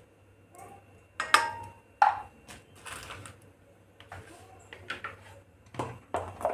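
Kitchen utensils and containers being handled: several sharp clicks and knocks, the loudest about a second in, again at two seconds, and twice near the end, one with a brief metallic ring.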